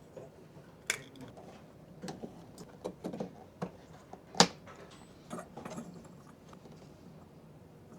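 Scattered hard clicks and knocks of small parts being handled on a car headlight assembly: about a dozen uneven taps, the loudest about halfway through.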